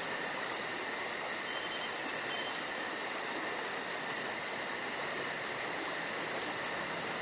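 Insects chirping steadily, with a fast high pulsing at about four pulses a second that drops out for about a second midway.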